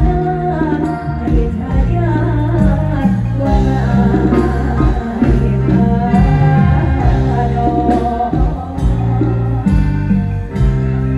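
Live band music played loud over a stage PA, with a woman singing. Held bass notes, a steady drum beat and a wavering sung melody run through it.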